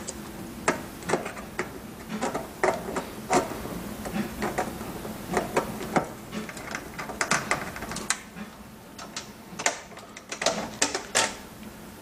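Irregular clicks and light knocks of a screwdriver working the Torx screws of a dishwasher's front panel.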